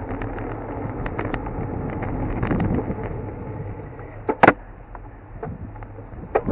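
Bicycle ride noise: wind buffeting the microphone and tyre rumble on asphalt, with a couple of sharp knocks about four and a half seconds in and another near the end.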